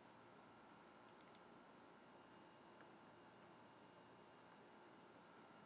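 Near silence: faint room hiss with a few soft, sparse clicks of a computer keyboard as the export size and filename are typed in.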